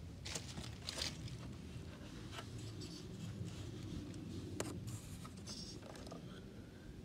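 Handling noise: light scrapes, rustles and taps as the camera is moved around and fingers brush near it, over a steady low rumble.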